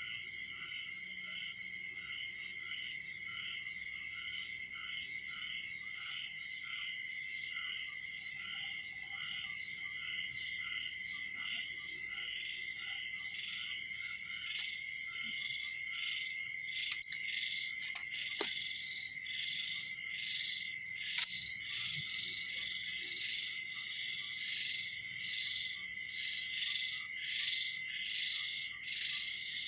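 Night chorus of calling frogs and insects: a steady high trill runs under a rhythmic pulsing call that repeats about twice a second, with a few faint clicks around the middle.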